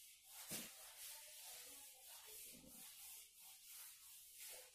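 Faint rubbing of a duster being wiped across a whiteboard, erasing marker writing in repeated strokes.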